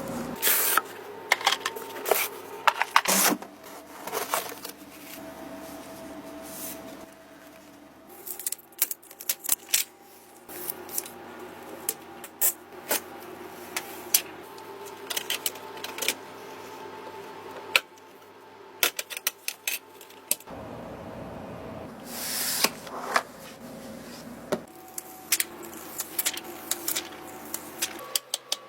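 Gaming PC parts being handled and fitted by hand: a long run of irregular clicks, taps and knocks of plastic and metal, with occasional rustling.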